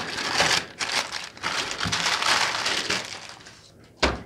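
Thin plastic courier mailer bag crinkling and tearing as it is pulled open by hand. A single short knock comes about four seconds in.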